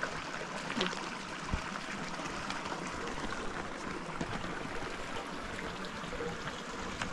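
A shallow stream running steadily over stones, with a few faint clicks on top.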